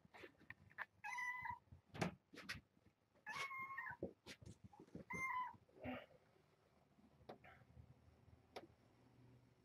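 A cat meowing: three short calls about a second, three and a half seconds and five seconds in, with soft clicks and taps between them.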